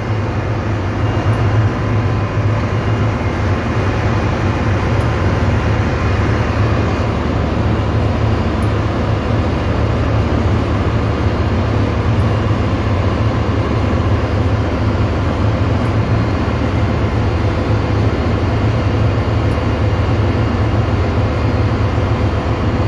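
Steady engine-room machinery noise: a loud, constant low hum with a rumbling haze above it, from the ship's generators and fans running while the main engine is stopped for scavenge inspection.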